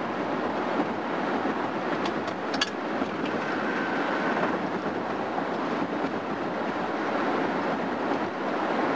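Steady road and wind noise inside a car cruising at highway speed on a concrete interstate, with a few faint clicks about two seconds in.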